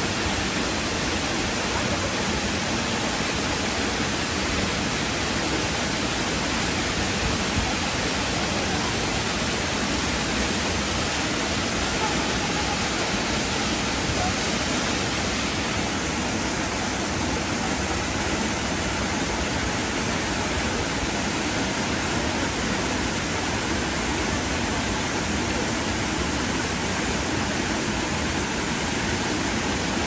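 Waterfall pouring into a plunge pool: a steady, even rush of falling water.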